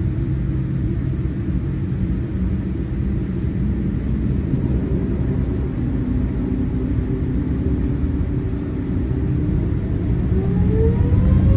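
Boeing 787-8 airliner heard from inside, a steady low rumble with engine tones while it rolls on the ground. About ten seconds in, the engine tones rise in pitch and the sound gets louder as the engines spool up for the takeoff roll.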